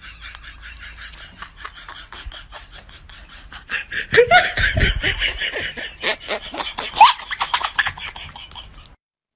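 People laughing in quick pulsing bursts, growing louder about four seconds in, then cutting off abruptly near the end.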